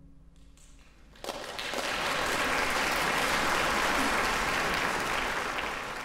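Audience applauding: after a brief hush, clapping breaks out about a second in and builds quickly to full, steady applause.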